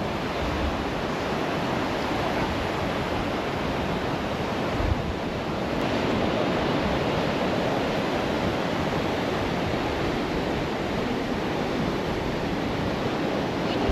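Rough sea surf washing onto a beach: a steady rushing of waves, with some wind buffeting the microphone.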